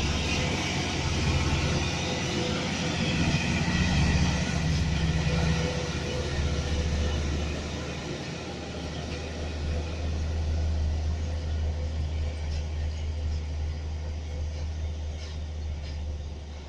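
Heavy diesel trucks passing close by one after another, their engines a deep steady drone over tyre and road noise. It swells as each truck goes by and fades near the end as they move off.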